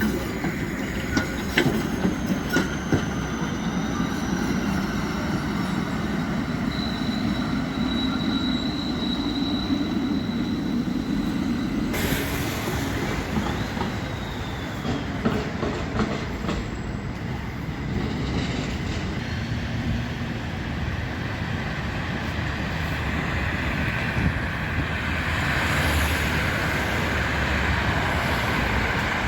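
City tram running on street track, its wheels clicking over rail joints in the first few seconds. A thin, high wheel squeal follows for a few seconds.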